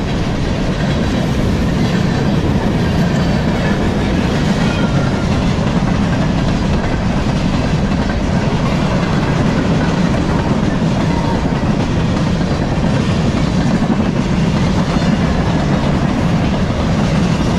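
Freight cars of a long CSX manifest train rolling past close by: a steady, loud rumble of steel wheels on the rails.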